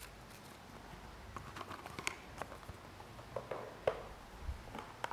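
Faint rustling and scattered small clicks and taps of a paper card and small boxes being handled, the sharpest tap about four seconds in.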